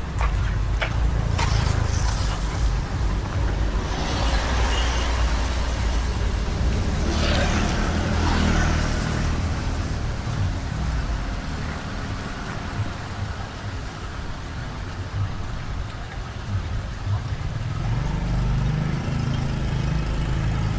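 Excavator engine running steadily with a low rumble. Two stretches of louder rushing noise come about four and seven seconds in.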